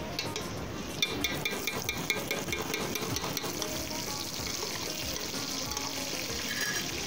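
Hot oil with fried onions sizzling in an aluminium cooking pot as spoonfuls of paste go in. A quick run of light metal spoon clinks comes about a second in, and after that the sizzle carries on steadily.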